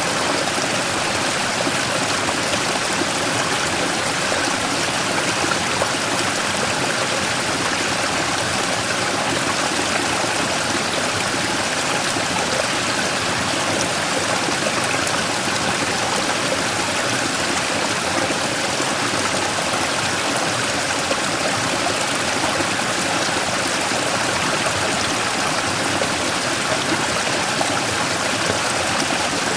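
Mountain stream rushing and splashing over a large rock in a small waterfall, a steady, even water noise with no pauses.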